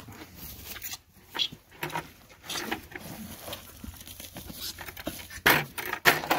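Young bottle calf being handled at its milk bucket while learning to drink: scattered rustling, shuffling and knocks, with two louder bursts near the end.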